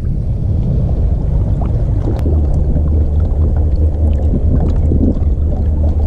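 Steady low rumble of wind and water noise around a bass boat on the river, with a few faint clicks.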